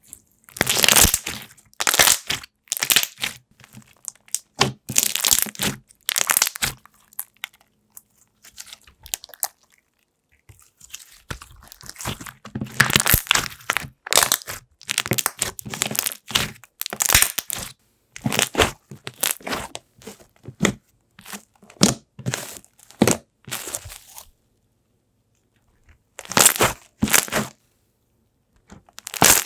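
Slime being squished, stretched and pressed by hand, crackling and popping in repeated bursts, with a pause of about two seconds near the end.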